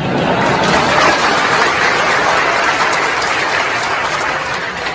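Audience in a large hall applauding: a steady, dense clapping that fades out just after the end.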